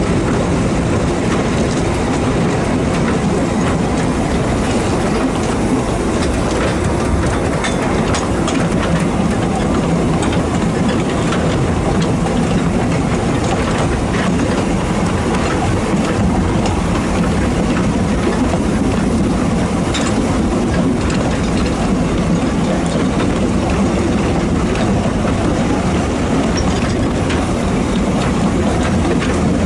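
A 2 ft gauge steam locomotive hauling a passenger train, heard from the carriage behind it: steady running noise, with scattered clicks from the wheels on the rails.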